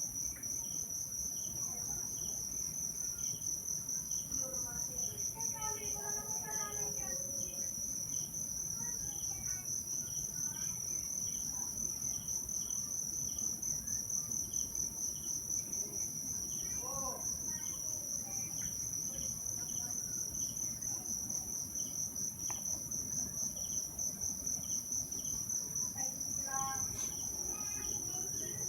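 Crickets trilling: a steady, high-pitched, rapidly pulsing chirr that goes on without a break, with a few faint short pitched calls now and then.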